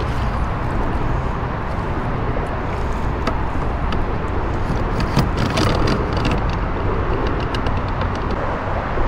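Steady low rumbling noise with scattered knocks and small splashes as a wheeled kayak cart is lifted out of shallow water and handled against a plastic kayak.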